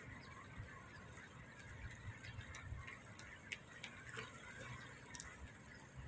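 A few brief, high chirps from a group of smooth-coated otters, spread through the middle and later part, over a faint low outdoor rumble.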